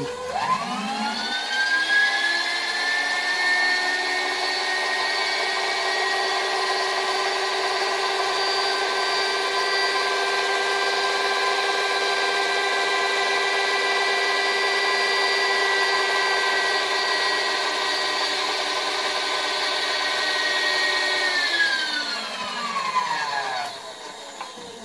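Milling machine's power table feed motor whining as it drives the table along during a dial-indicator sweep of an exhaust manifold flange. It spins up at the start, holds a steady pitch, then winds down over a couple of seconds near the end as the table stops.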